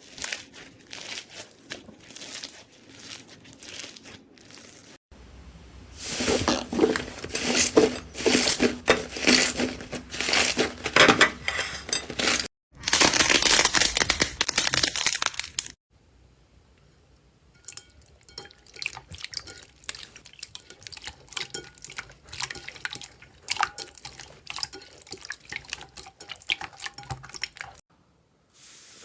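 Slime being pressed, stretched and poked by hand in a run of short clips, giving crackling, crinkling and squishing sounds. The stretch in the middle is the loudest and densest, and the clips change abruptly.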